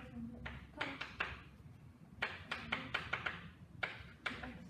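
Chalk tapping and scratching on a chalkboard while writing, an irregular run of sharp taps with short pauses between strokes.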